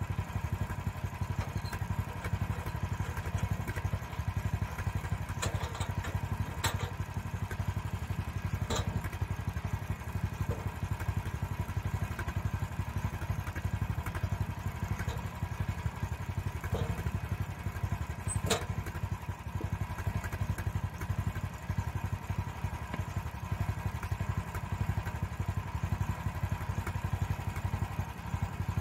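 Rangeroad RR6026 band sawmill's gasoline engine running steadily, a low hum with a constant whine. Over it come a few sharp knocks and clanks, the sharpest about eighteen seconds in, as the log is handled on the mill.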